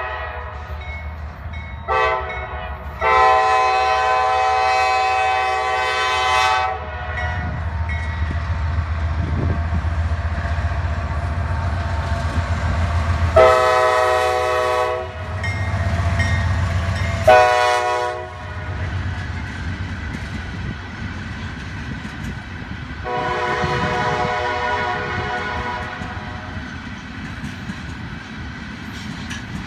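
Norfolk Southern diesel locomotive's air horn blowing for a grade crossing in the long, long, short, long pattern, after two short blasts at the start, over the steady low engine rumble as the locomotive passes. Ballast hopper cars then roll by with rail clatter.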